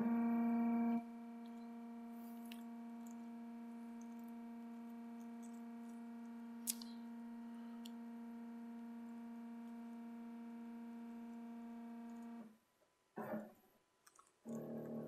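CNC router's stepper motors whining with a steady pitched tone as the machine feeds the end mill slowly along the Y axis on a rough probing move. The tone is louder for the first second and cuts off about twelve and a half seconds in, when the probe touches off. A short burst of motor noise follows about a second later, and the steady tone starts again near the end as the fine probing pass begins.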